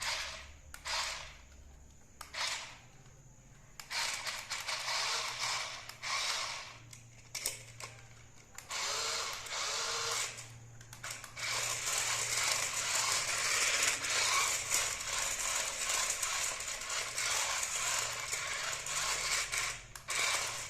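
Small electric drive motor and plastic gears of a toy RC monster truck whirring in bursts as the throttle is worked: several short bursts, then longer runs, then running on continuously for about the last nine seconds.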